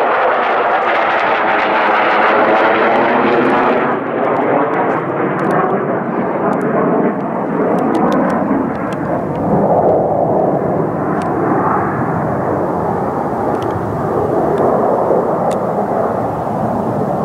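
Loud jet noise from an F-16 Fighting Falcon flying past low overhead, with a swirling, phasing sound in the first few seconds. About four seconds in the high hiss falls away and a steady low rumble carries on.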